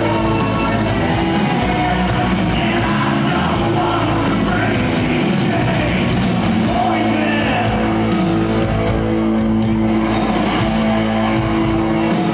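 A live rock band playing loudly with a singer, amplified through a big outdoor PA and heard from far back in the crowd.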